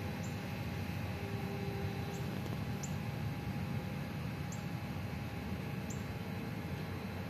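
Outdoor garden ambience: a steady low rumble with short, high, falling chirps every second or two.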